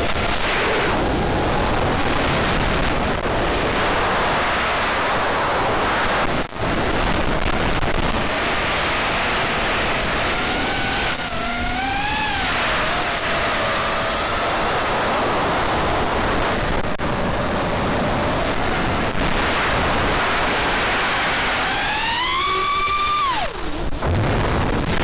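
FPV racing quadcopter's brushless motors and propellers, heard through the onboard camera's microphone as a rushing wind noise with a motor whine that rises and falls in pitch. Near the end the whine climbs steeply, then drops away sharply.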